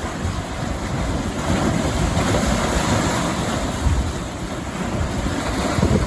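Strong typhoon wind buffeting the microphone in gusts, over the rush of rough surf. The rush swells a couple of seconds in.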